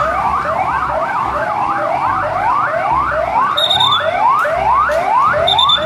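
Electronic police-style siren from a toy police car, sounding as quick rising sweeps about two and a half times a second. Two short high beeps come in the second half.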